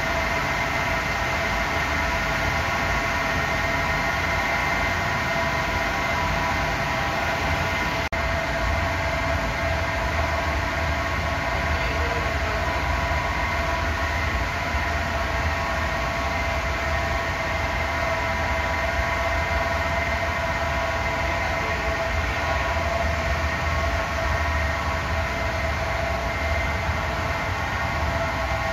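Steady machine drone: a low rumble under a constant whine made of several fixed tones, holding at an even level.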